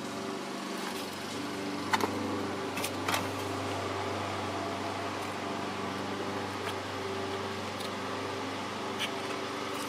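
Steady hum of a small electric fan motor at the workbench, with a few faint clicks of small parts or tools being handled.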